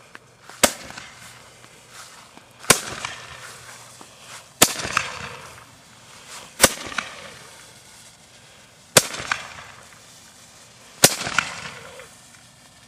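Roman candle fired through a metal barrel, shooting its charges one after another: six sharp pops about two seconds apart, each followed by a brief hiss.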